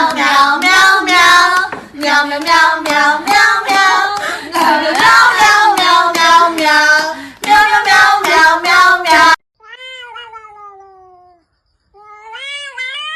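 A cat yowling loudly in a rapid string of pitch-bending calls. These cut off about nine seconds in, followed by two long drawn-out meows, the first sliding down in pitch.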